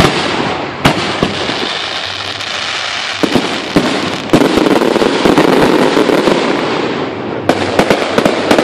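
Aerial fireworks shells bursting: a sharp bang at the very start and another about a second in, then scattered bangs and a dense crackling stretch through the middle, with a quick cluster of bangs near the end.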